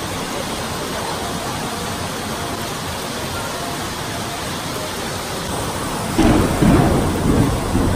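Steady rain, an even hiss. About six seconds in, a louder low rumble joins it and lasts to the end.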